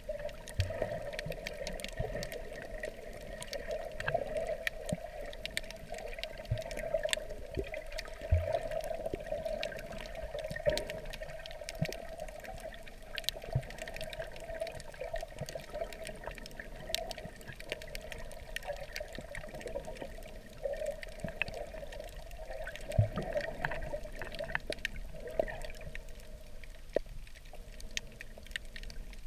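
Water heard from underwater: a steady muffled wash with many scattered sharp clicks and crackles, and a few low thumps.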